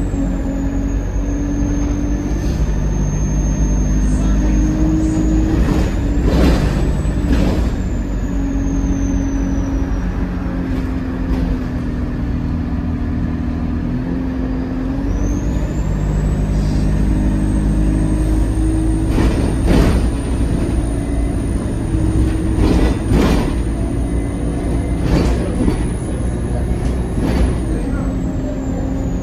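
Cabin sound of an Alexander Dennis Enviro200 Dart single-decker bus on the move: the diesel engine's drone steps up and down in pitch several times as the bus pulls away and slows. A high thin whine glides up and down over it, and a few short whooshes break in near the middle and toward the end.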